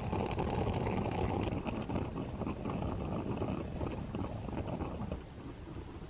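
Aluminium camping coffee percolator perking over a campfire: water bubbling and gurgling up through the tube into the glass top knob at full boil, with small crackles. It drops in level about five seconds in.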